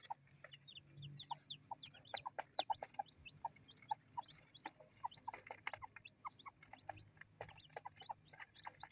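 Two-day-old native chicken chicks peeping: many short, high chirps in quick succession, several falling in pitch, with a few lower, softer notes mixed in.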